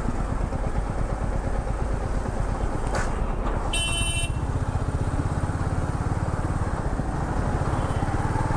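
Royal Enfield Meteor 350's single-cylinder engine idling with a steady low pulse. A brief high-pitched beep sounds about four seconds in.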